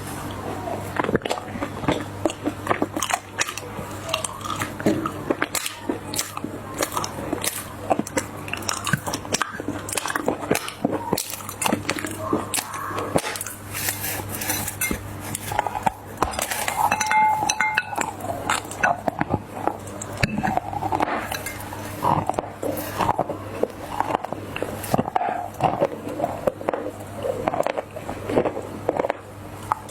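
Dried clay crunching and crumbling as it is crushed, a continuous run of small crackles and snaps.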